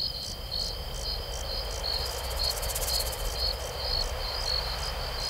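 Crickets chirping in an even rhythm, about two or three chirps a second, over a continuous high trill.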